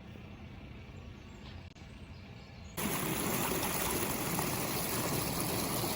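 Faint outdoor background, then about three seconds in a sudden cut to the steady, even rush of flowing water, much louder.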